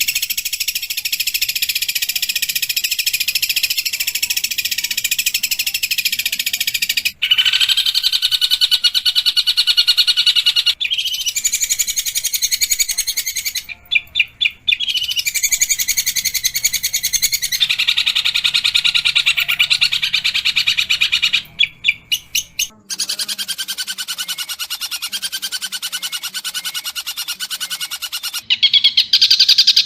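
Long-tailed shrike (pentet) singing a harsh, fast chatter of rapidly repeated notes. It comes as several spliced song passages that switch abruptly every few seconds, with two brief stuttering breaks.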